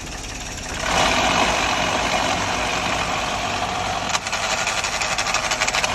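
Suzuki Cultus idling, its gearbox area heard up close. About a second in a loud harsh whirring noise starts over the idle and keeps on, and from about four seconds a fast rattle joins it. This is the strange noise the car makes when the clutch is pressed to engage a gear, a sign of a fault in the gearbox.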